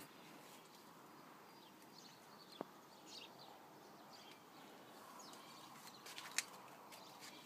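Near silence: faint outdoor background hiss with a couple of soft clicks, about two and a half seconds in and again near the end.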